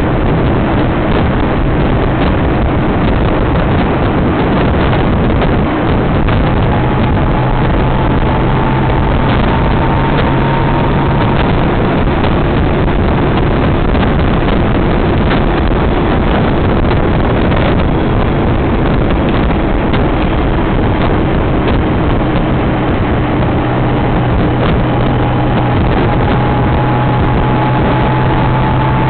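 Honda Gold Wing motorcycle cruising at a steady speed, its engine a steady low drone under heavy wind rush on the microphone. A faint whine slowly rises in pitch twice.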